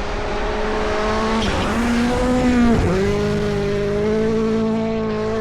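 Rally car engine held at high revs. Its pitch dips briefly twice, a small dip about one and a half seconds in and a deeper drop and recovery about three seconds in, as the driver lifts or shifts gear.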